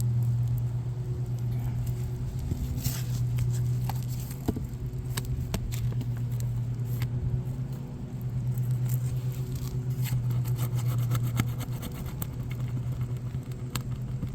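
A steady low machine hum runs throughout, with scattered sharp clicks and scrapes of hand tools prying at an asphalt shingle and its nails.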